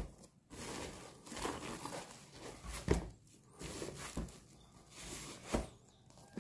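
Plastic film around a cardboard parcel rustling and crinkling under knit-gloved hands as it is turned over, with a few soft knocks as the parcel meets the wooden table.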